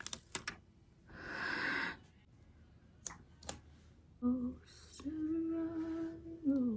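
Fingernails picking and clicking at a small sticker to peel it off its backing, with a soft breathy swell about a second in. From about four seconds in a woman hums a slow tune, holding one long note, then sliding down near the end.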